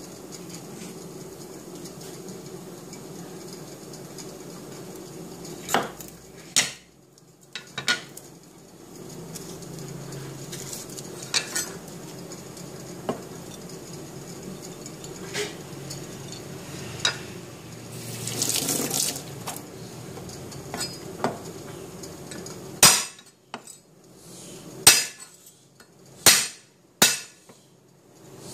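A cleaver knocking and scraping on a wooden cutting board as garlic is cut, then four sharp whacks near the end as black peppercorns are crushed on the board.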